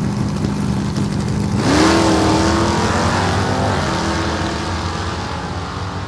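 Car engine running steadily, then revving up sharply about a second and a half in, its pitch climbing and holding before the sound slowly fades.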